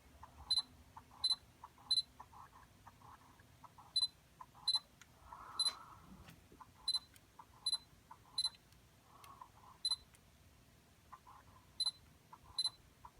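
Camera and Sony FE 85mm f/1.4 G Master lens focusing again and again: about a dozen short high focus-confirmation beeps, each with a faint buzzy whir from the lens's focus motor. The lens keeps making this weird noise even with firmware 3.10, which its owner says sounds like it's breaking.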